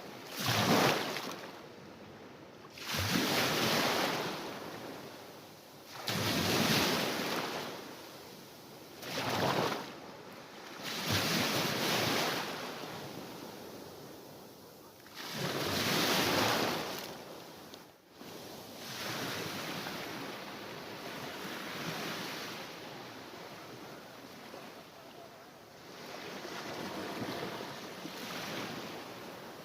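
Mediterranean Sea waves breaking and washing in, one surge of surf about every three seconds, then a softer, more even wash in the second half.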